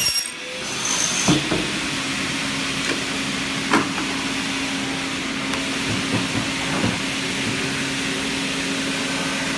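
Double-head cutting saw for PVC profiles running between cuts: a steady machine hum and hiss, with a few sharp clunks, the loudest about four seconds in.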